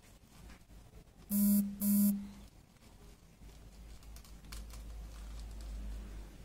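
Two short buzzing beeps back to back, about a second and a half in, each lasting about half a second at one steady pitch. Faint paper rustling and small clicks follow.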